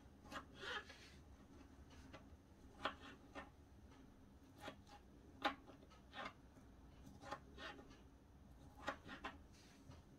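Kitchen knife cutting boiled beetroot into cubes on a plastic cutting board: faint, irregular knocks of the blade on the board, about a dozen of them.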